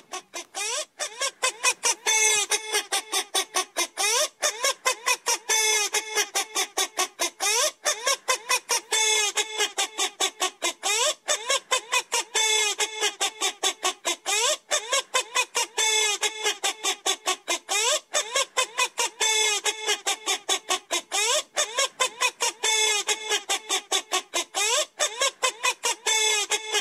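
A bird's honking calls, repeated several times a second without a break, some of them rising in pitch.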